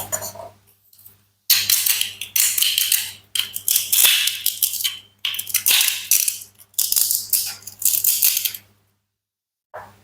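Crunchy, rattling cutting sounds from toy food being sliced, in about five separate bursts of one to two seconds each.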